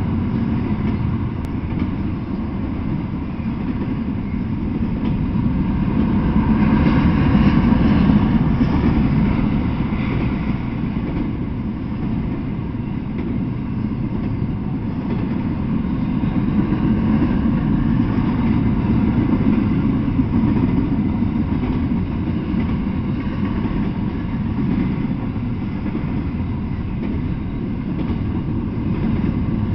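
Double-stack intermodal freight train rolling past: a steady rumble of well-car wheels on the rails, swelling a little louder about six to ten seconds in.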